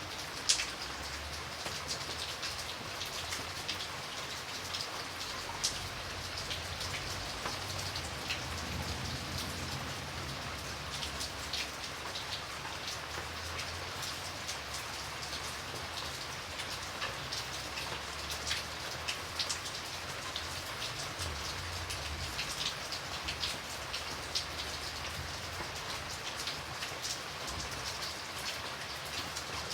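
Steady rain falling, an even hiss with many separate drops ticking on a surface, one sharper drop about half a second in.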